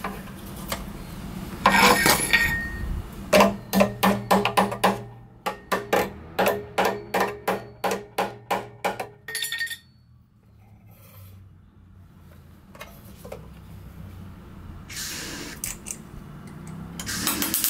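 Welding on the steel crossmember of a Citroën DS: a short burst of weld crackle about two seconds in, then a run of ringing hammer taps on the steel, about three a second for some six seconds, and welding crackle again near the end.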